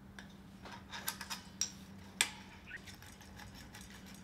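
Light metallic clicks and clinks of aluminium parts and a bolt being handled and fitted together on the arm, a quick run of them around one second in and a sharper click a little after two seconds, over a faint steady hum.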